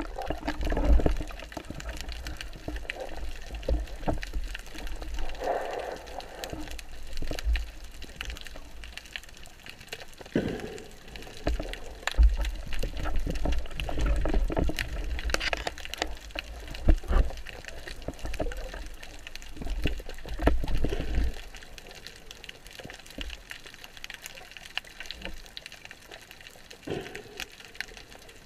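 Water sloshing and gurgling around a spearfisher's camera, with irregular low rumbles and scattered clicks and knocks.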